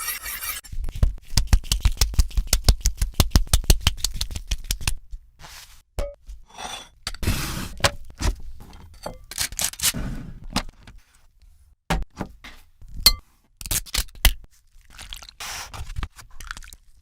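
Kitchen utensil sounds: a run of rapid, even strokes, about eight a second, for roughly four seconds, then scattered scrapes and clinks of utensils against a hard surface.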